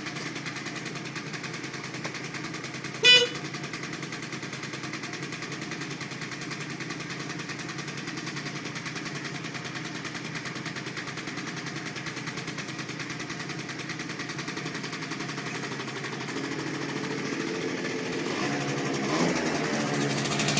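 Aprilia SR scooter's two-stroke engine idling steadily, with one short horn beep about three seconds in. Near the end the revs climb as the throttle is opened.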